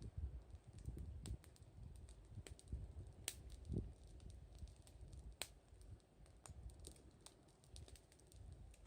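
Wood campfire crackling faintly, with scattered sharp pops at irregular intervals over a low rumble.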